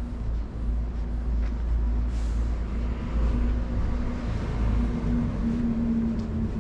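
A motor vehicle's engine running nearby: a steady low hum that rises slightly in pitch near the end, over a deep rumble.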